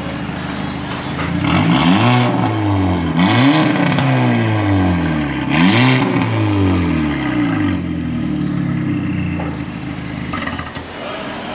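Volkswagen Golf MK5 GTI's turbocharged 2.0-litre four-cylinder revved three times through its newly repaired exhaust, each rev climbing and falling back. It then settles to idle.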